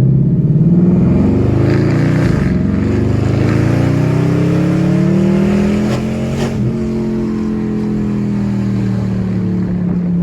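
Dodge Charger Scat Pack's 392 HEMI V8, running on E85, accelerating: the engine note rises, drops at a gear change about two seconds in, climbs again, then holds nearly steady as the car cruises. It is loud, heard from inside the cabin with the windows down.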